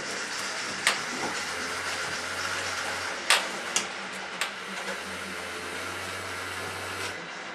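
Model diesel locomotive running slowly on the track: a steady motor whir and hum with a few sharp clicks from the wheels on the rails. The hum stops near the end.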